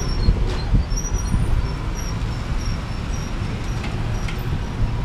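Street traffic: cars and a pickup truck moving slowly close by, a steady low rumble of engines and tyres, with faint short high chirps above it.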